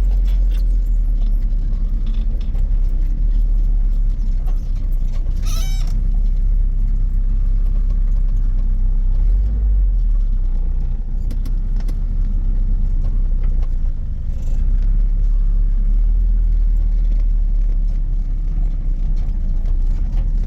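Car in motion: a steady low rumble of engine and road, with a short rattle about five and a half seconds in.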